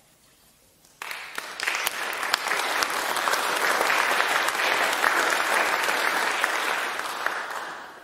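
Audience applauding, starting suddenly about a second in after a brief hush and dying away near the end.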